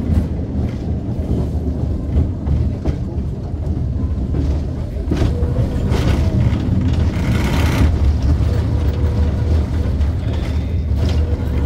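Vintage tram running on its track: a steady low rumble with scattered clicks and rattles, and a brief hiss about seven seconds in.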